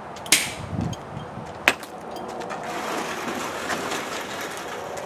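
A large metal toolbox being handled and moved: a sharp clank and a thud near the start, a sharp knock about a second later, then a steady rolling rumble like casters on a hard floor.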